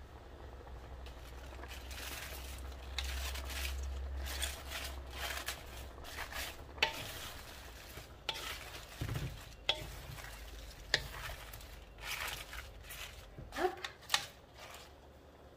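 Wooden spatula stirring and turning baby bok choy and eggplant in a large aluminium wok: leaves rustling, with irregular scrapes and a few sharp knocks of the spatula against the pan, over a low sizzle.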